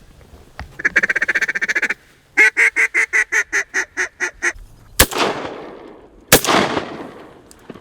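A mallard duck call blown in a rapid chatter, then a string of about ten quick, evenly spaced quacks. Then two shotgun shots about a second apart, each with a long echoing tail.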